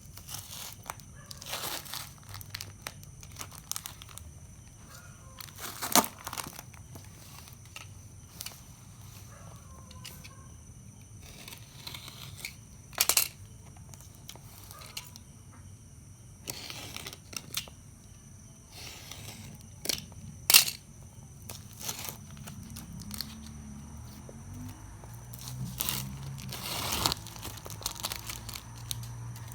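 Plastic packaging crinkling and being torn, handled on and off throughout, with a few sharp knocks or clicks, the loudest about 6, 13 and 20 seconds in.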